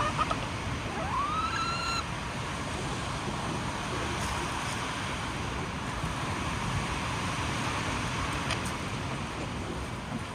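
Steady wind noise rushing over the microphone. A chicken gives one rising call about a second in, and there are faint short chirps at the start.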